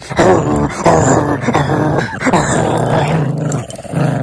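Small dog growling almost continuously while biting and tugging on a plush toy in play.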